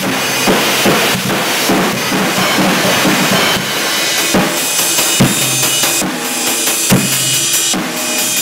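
Ddrum acoustic drum kit played in a steady groove: bass drum, snare and cymbals, with a constant wash of cymbals over the top. From about the middle, strong bass drum hits fall roughly once a second.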